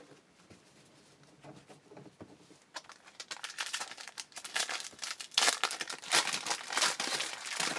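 Plastic wrapper of a baseball card pack being torn open and crinkled by hand, starting about three seconds in as a dense crackling that grows louder toward the end.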